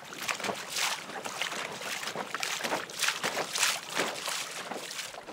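Water splashing and hissing against the hull of a small inflatable dinghy moving across choppy water, in irregular surges.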